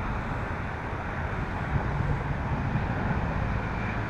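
Steady outdoor background noise, a low rumble and hiss with no distinct events.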